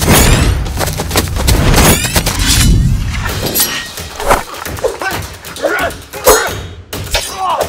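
Dubbed fight-scene sound effects: a fast run of sharp hits and thuds, several a second, with short whooshing sweeps between them.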